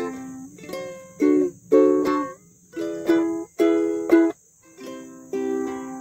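Music: chords strummed on an acoustic string instrument, with a run of short, clipped strums in the middle and a brief pause before the strumming resumes.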